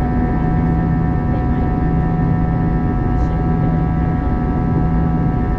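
Airliner cabin noise from a seat beside the wing of an Airbus A321-211 climbing after takeoff: the CFM56 turbofan engines and airflow make a steady drone, with several constant tones over a low rumble and hiss.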